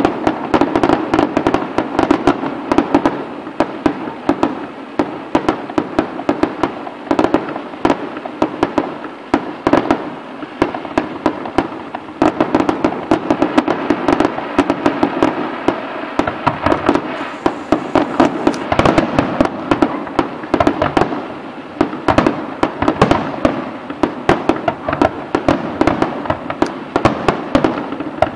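Fireworks display: shells bursting in rapid, unbroken succession, a dense barrage of bangs and crackling.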